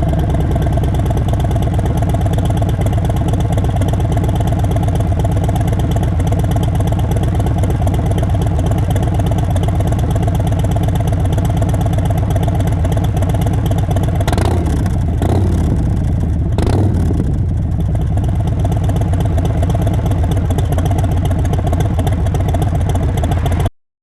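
Harley-Davidson Sport Glide's V-twin engine idling through a Cobra 909 2-into-2 full exhaust, with three quick throttle blips about two-thirds of the way through, then back to idle. The sound cuts off abruptly just before the end.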